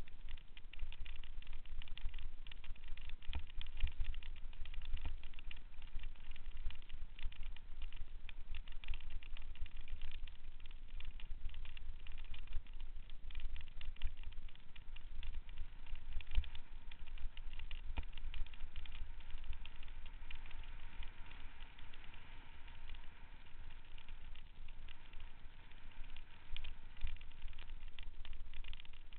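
Mountain bike riding over a rough dirt and gravel trail, heard through a camera mounted on the bike: wind rumbles on the microphone and the bike and camera mount rattle and click with every bump.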